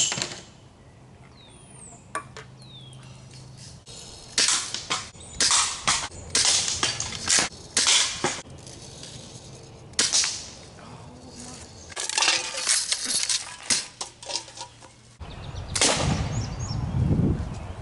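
A string of BB rifle shots and BB strikes on targets, a sudden sharp sound every second or two, some with a short clanging tail. Birds chirp in the first few seconds.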